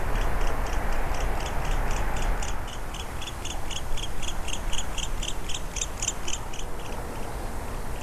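A strange, rapid series of high chirping pulses from an unidentified animal, about four a second, growing a little louder before stopping about a second before the end, over a steady rushing background.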